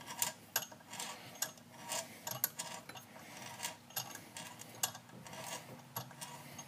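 Ratcheting T-handle tap wrench clicking in short irregular runs, about two or three clicks a second, as a Time-Sert tap is turned by hand to cut new threads in a stripped screw hole on a Stihl MS 260 chainsaw.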